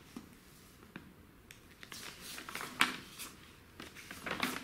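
Paper rustling as the pages of an old magazine are turned by hand, with a sharp crackle of paper about three seconds in and another rustle near the end.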